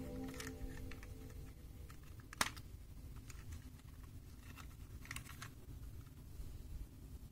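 Plastic parts of a Super Wings transforming toy plane clicking as it is handled, with one sharp snap about two and a half seconds in and a few lighter clicks around five seconds in.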